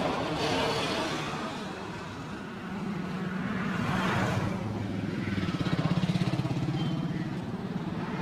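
Road traffic: a motor vehicle's engine running close by, with other vehicles passing.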